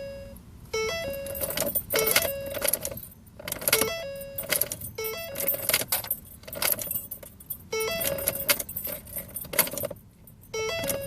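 Keys on a key ring jangling and clicking at the ignition of a 2009 Ford Focus that won't start, with a short electronic chime from the car repeating every second or so.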